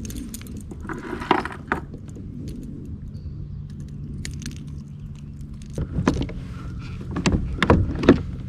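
Clicks, knocks and light rattling of a small fish and tackle being handled aboard a kayak, over a low steady hum; the knocks come thicker and sharper for the last couple of seconds.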